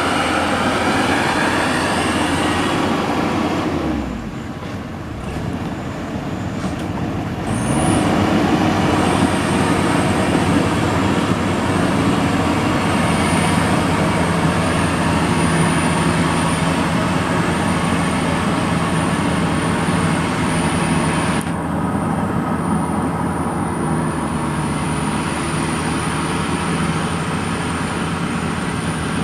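Combine harvester engine and machinery running hard and steadily. About three seconds in the engine note falls and the sound drops off, then about four seconds later it revs back up and keeps running.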